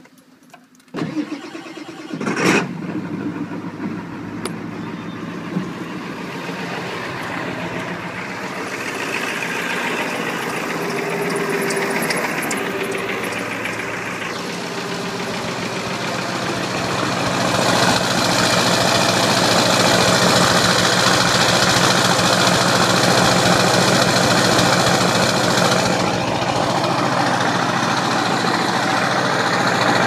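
Ford 7.3 L Powerstroke turbo-diesel V8 cranked on a cold start, catching about two seconds in and then idling steadily with a turbo whistle; the engine grows louder from about halfway on, heard from beside the truck instead of from inside the cab.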